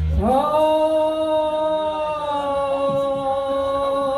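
A singer holds one long sustained note, sliding up slightly into pitch at the start, as the band drops out just before it.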